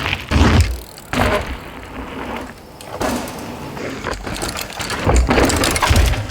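Rough, irregular rumbling and rattling noise through a phone's plug-in microphone, broken by several heavy low thumps: typical of riding a mountain bike over a dirt trail with wind on the mic.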